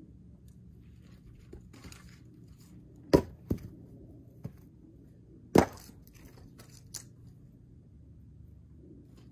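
Split firewood pieces tossed down onto a pile, landing with about five sharp wooden knocks; the two loudest come about three and five and a half seconds in.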